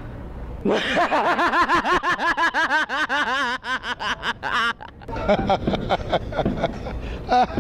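A person's fake laugh, put on for the asking: a rapid run of high-pitched 'ha-ha-ha' pulses lasting about four seconds, then looser, broken laughter with voices.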